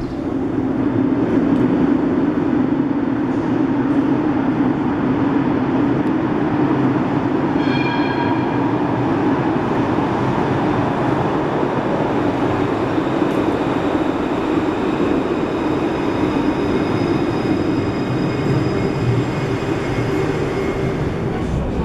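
A tram arriving through a tunnel into an underground station: a loud, steady running rumble that echoes off the tunnel walls. About eight seconds in, a short ringing chime sounds, and in the second half a faint high electric whine comes through as the tram draws up to the platform.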